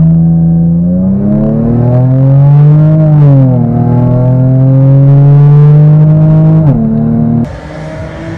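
Lexus IS300's 2JZ-GE straight-six heard from inside the cabin as the car pulls forward at low speed: the engine note climbs, dips about three seconds in, climbs again and falls away near seven seconds. Just after that the sound cuts to open-air noise at the track.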